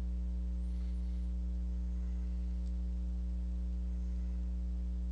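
Steady low electrical mains hum with a stack of overtones and a faint hiss, picked up on the recording.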